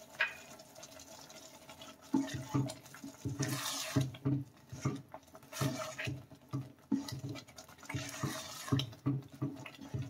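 Plastic spoon stirring thick semolina-and-fig halwa in a nonstick saucepan: rhythmic squelching, scraping strokes, about two to three a second, starting about two seconds in.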